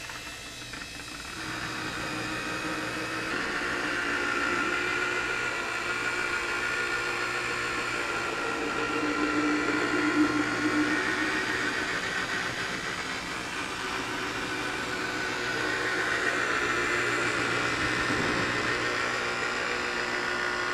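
High-speed rotary buffer with a foam pad running on its lowest setting, working cutting compound into boat paint. It spins up in the first second or two, then runs on as a steady motor whine with the hiss of the pad on the surface.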